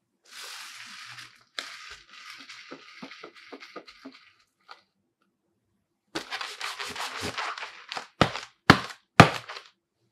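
HO Soccer Legend II goalkeeper gloves' latex foam palms rubbing and brushing with small clicks, first against artificial turf and then gripping a football. Three sharp slaps of the palm on the ball come near the end, the loudest sounds here.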